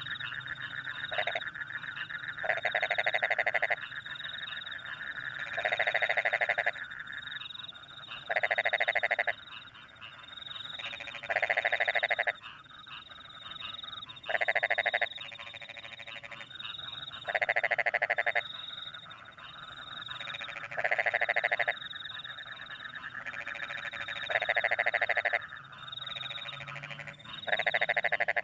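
Chorus of rice-field frogs calling in bursts of rapid trilled croaks, each about a second long, roughly every three seconds. Underneath runs a steady high chirping of crickets.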